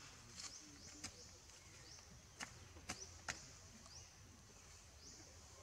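Faint outdoor forest ambience: a steady high chirring with short rising chirps repeating, and a few sharp clicks near the middle.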